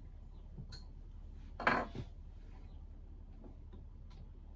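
Small metal lathe parts being handled, clicking and clinking against each other a few times, with one louder clatter a little under two seconds in.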